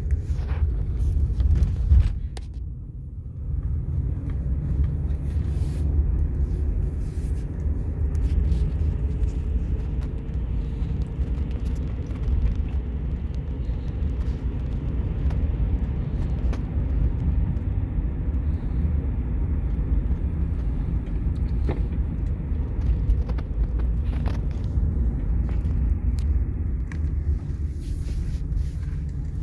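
Car driving with a steady low rumble from the wheels and road and a faint hum that drifts slowly in pitch: the noise the car makes after being hit, taken to mean it needs new tires.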